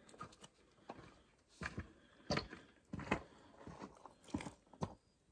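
Knife cutting into and gutting a brook trout held in the hands: a handful of faint, short wet crunches and clicks, roughly one a second.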